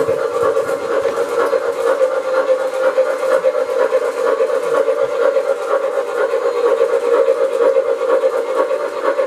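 O-gauge model train running around the track: a steady motor-and-wheel drone with a fast, fine rattle of wheels on the rails.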